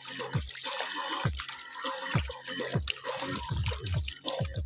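Water splashing and pouring over a boAt Stone 1200F Bluetooth speaker and dripping off it, while the speaker keeps playing music underneath with a low bass beat. The music comes out muffled because the speaker's grille cloth is soaked with water.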